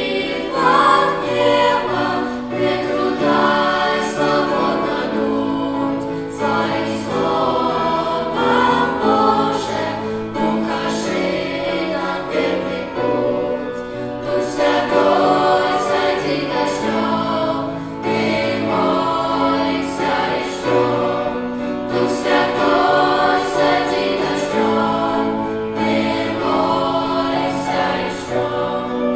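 Children's and teenagers' choir of boys and girls singing a worship song, amplified through handheld microphones.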